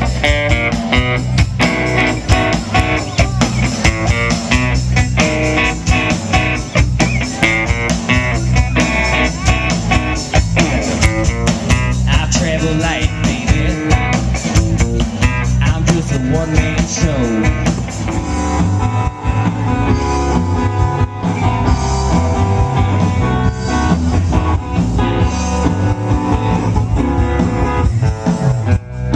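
Guitar-led blues-rock music with drums and a steady beat.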